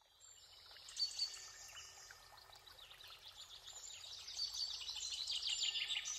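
Small songbirds chirping and trilling, many quick high calls overlapping, with two louder chirps about a second in and the chorus growing louder toward the end.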